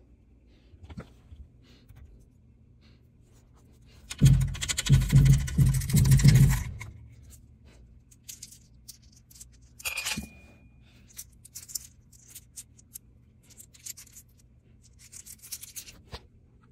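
Scraping and rustling handling noises, loudest in a rumbling burst of about two and a half seconds a few seconds in, followed by a click with a short high beep around ten seconds in and scattered lighter rustles.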